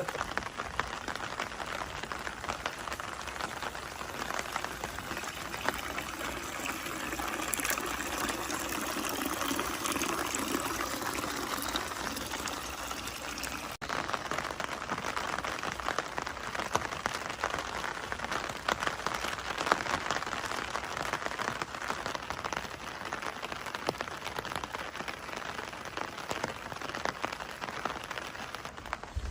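Steady rain falling, an even hiss with a patter of drops, broken by a brief dropout about fourteen seconds in.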